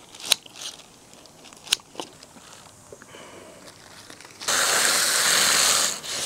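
A few faint clicks and crinkles of handling on a plastic sheet, then, about four and a half seconds in, a garden hose spray nozzle starts hissing steadily as water jets onto the turtle shell. The spray breaks off for a moment near the end and comes straight back.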